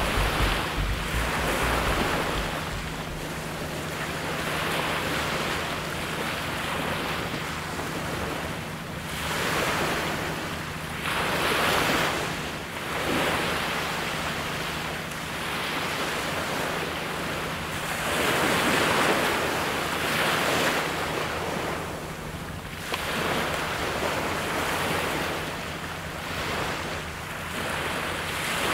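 Small sea waves breaking and washing up a gravel beach, the rush swelling and fading every few seconds, with some wind buffeting the microphone.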